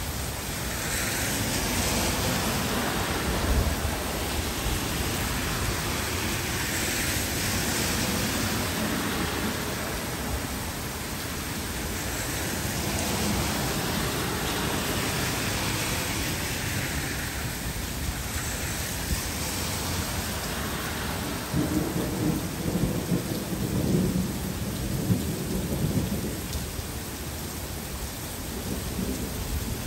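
Heavy rain falling steadily on trees and pavement, its hiss swelling and fading a few times. A low, uneven rumble of thunder rolls through about two-thirds of the way in.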